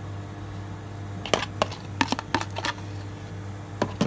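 Metal spoon clicking and scraping as mashed potato is spooned from a plastic bowl onto a baked potato skin and pressed down: a quick run of sharp clicks from about a second in, then two more near the end. A steady low hum runs underneath.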